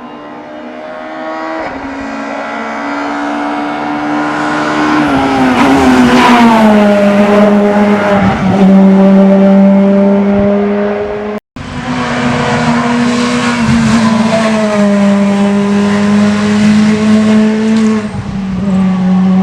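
A rally car engine held at high revs, growing louder as the car approaches, its note dropping about five seconds in and then running steady. After a sudden cut about eleven seconds in, another stretch of a rally car engine running hard at steady high revs.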